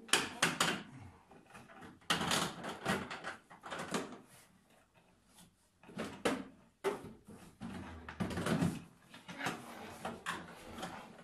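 Hard plastic knocking, scraping and rattling in irregular bursts from a Pilsan plastic children's slide being fitted together and handled, with a small toy car pushed along its plastic surface.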